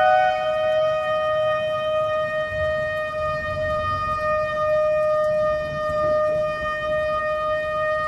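A shofar sounding one long, steady blast held at a single pitch, with a faint low rumble underneath.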